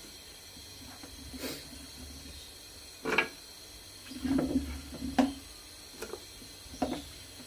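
Goat trotters dropped one at a time into an aluminium pressure cooker, knocking against the pot and each other as they settle into the thick spice paste: five or six separate clunks a second or so apart.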